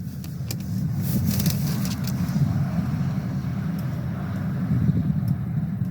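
Steady low rumble of a car running, the engine and road noise heard inside the vehicle, with a few faint clicks.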